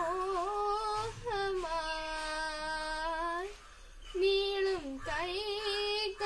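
A girl singing solo without accompaniment. One long phrase ends in a held, wavering note, then there is a brief breath pause about four seconds in before the next phrase begins.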